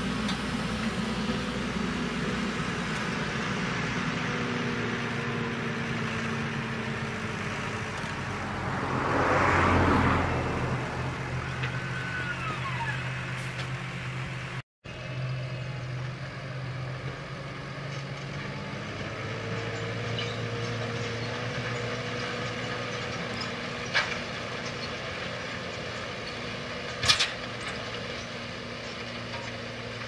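Case IH Puma tractor's diesel engine running steadily under load while ploughing, with a loud swell about a third of the way in and a brief drop-out near the middle. Two sharp clicks sound near the end.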